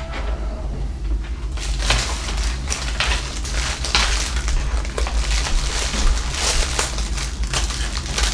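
Plastic packaging crinkling and rustling in a dense, irregular crackle as it is cut and pulled off a model plane's landing gear and wheels, starting about one and a half seconds in.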